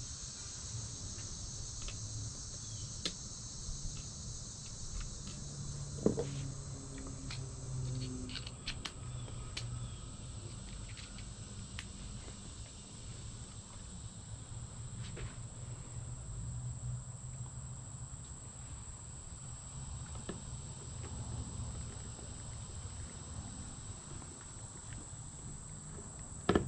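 Steady high-pitched insect chorus of crickets over a low hum, with scattered small clicks and taps as a clamp meter's battery compartment and battery are handled.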